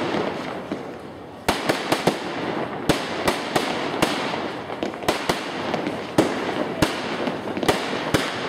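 Aerial fireworks shells rising and bursting in a quick barrage. After a quieter first second or so come sharp bangs, about two a second, over continuous crackling.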